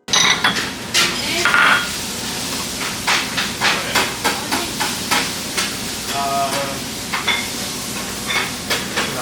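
Food sizzling and frying on a hot griddle or pan, a steady hiss with repeated sharp clicks and scrapes of utensils.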